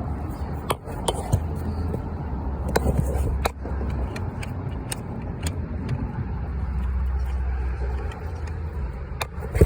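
Scattered sharp metal clicks and knocks from a car jack and lug wrench being handled, over a steady low rumble.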